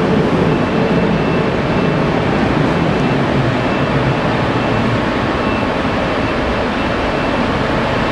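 DB Class 112 electric locomotive pulling slowly out of the station: a loud, steady running noise with a faint high tone that comes and goes.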